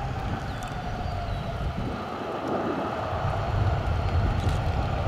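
Jet engines of a taxiing Southwest Boeing 737 running steadily at low power, under a gusting wind rumble on the microphone that grows stronger in the second half.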